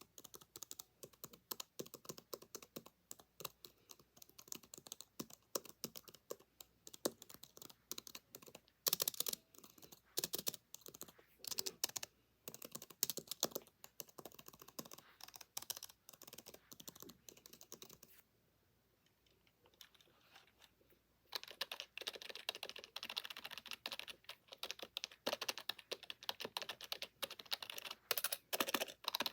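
Typing on a Bluetooth keyboard for an iPad: a steady, uneven run of quick key clicks, with a pause of about three seconds about two-thirds of the way through.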